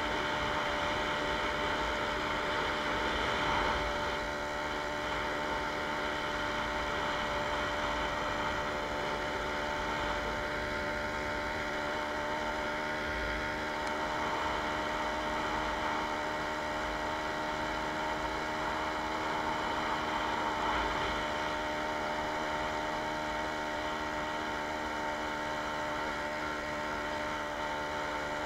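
Jawa 20 Pionýr moped's 50 cc two-stroke single-cylinder engine running at a steady speed while riding along.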